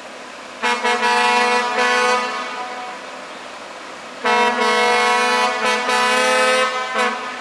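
Horn of an approaching Alerce railcar pair sounding two long, steady blasts, each about two to three seconds, with a short gap between them.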